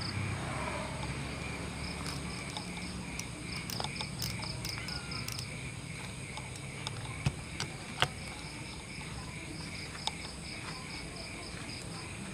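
Night chorus of frogs and insects calling, steady pulsed trills repeating several times a second. A few sharp clicks cut through, the loudest about eight seconds in.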